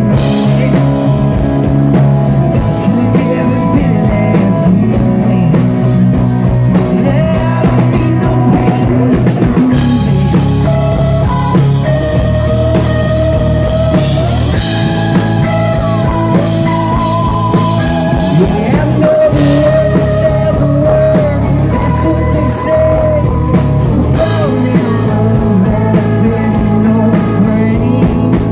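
A country-rock band playing live: strummed acoustic guitar and drums, with a sustained, sliding electric lead guitar line through the middle.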